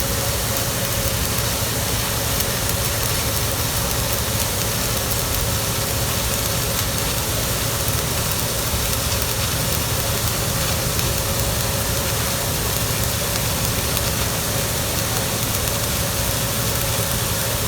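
Arc welding: the steady crackling hiss of the electric arc over a low, steady hum.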